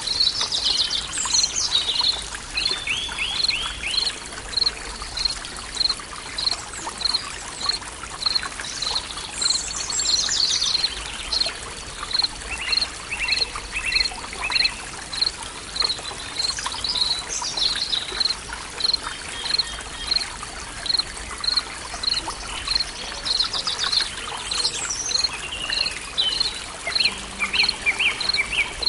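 Forest ambience with several birds singing: a high chirp repeated evenly, about one and a half times a second, under descending whistled phrases every seven or eight seconds and short trills. Trickling water runs faintly underneath.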